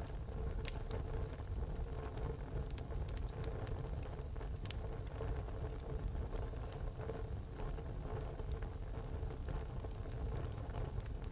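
Wood fire burning in a tile stove: a steady low rumble with irregular sharp crackles and pops from the burning wood.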